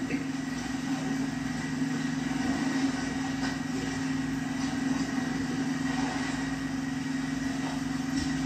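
An engine running steadily, a constant low hum that holds one pitch throughout, with faint clicks over it.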